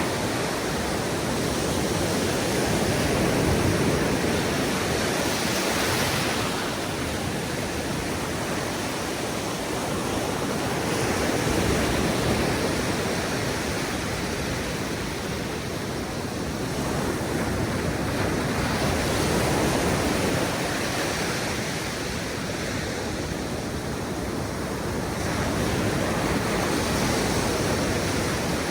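Ocean surf washing onto a beach: a steady rush of waves that swells and eases about every eight seconds.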